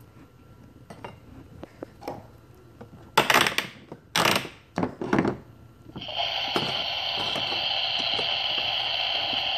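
A small metal toy pan and utensils clatter and knock against a plastic toy stove for a few seconds. Then, about six seconds in, the toy stove's burner starts a steady electronic cooking sound effect through its small speaker.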